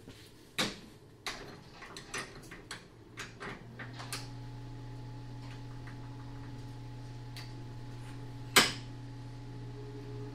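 Metal tools clinking and knocking against the chipper shredder's steel rotor and blade bolts, a handful of sharp clicks in the first few seconds and a loud knock near the end. A steady low hum starts a few seconds in.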